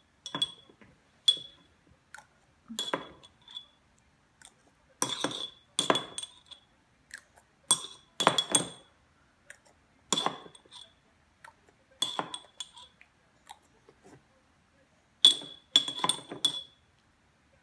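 A metal spoon clinking against the inside of small glass baby-food jars as a toddler scoops: irregular sharp clinks, often two or three in quick succession, each ringing briefly, with the loudest cluster near the end.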